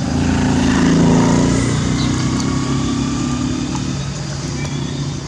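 A motor vehicle engine running close by, swelling about a second in and then easing off slowly.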